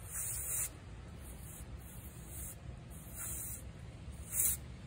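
Canned compressed-air duster blowing through its thin straw nozzle in several short hissing bursts, the first and last the strongest.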